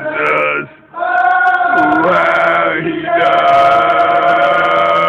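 Voices singing a slow worship song in long held notes, with short breaks for breath about a second in and again about three seconds in.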